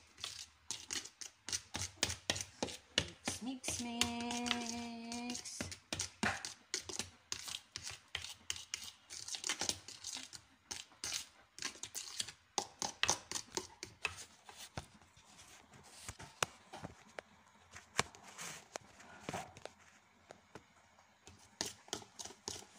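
Hand-mixing cake batter in a glass bowl: a utensil beating and scraping against the glass in quick, irregular clicks. A brief steady tone sounds about four seconds in.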